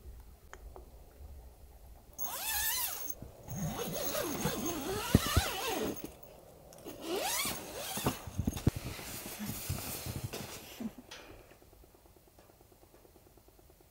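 Rustling of a puffy sleeping bag and bedding as a person climbs into bed and settles under it, with a few soft knocks, dying away near the end.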